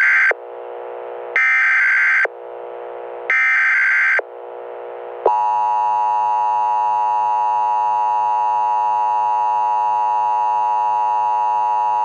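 Emergency Alert System header: short bursts of harsh data tones about a second apart, then, about five seconds in, the steady EAS attention tone.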